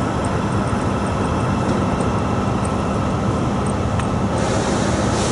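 Steady drone of highway traffic and idling trucks: a continuous low hum under an even rush of noise, with no breaks.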